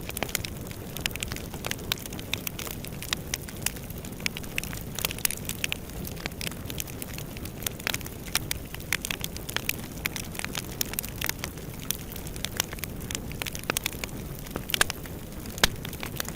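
Wood fire burning in a fireplace, crackling with frequent sharp pops over a steady low rush of flame, with a few louder pops near the end.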